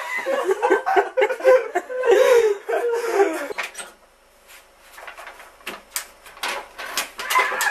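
A person laughing for about three and a half seconds, then a few scattered sharp clicks and knocks.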